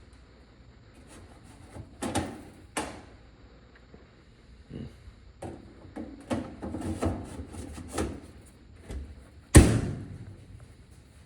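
Knocks and clunks of a clothes dryer's door and panels being handled, with one heavy bang about three-quarters of the way through.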